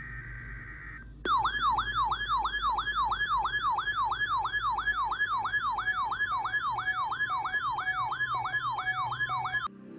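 Electronic alert siren: a steady high beep for about a second, then a loud yelp sweeping rapidly up and down, about three sweeps a second, that cuts off suddenly near the end.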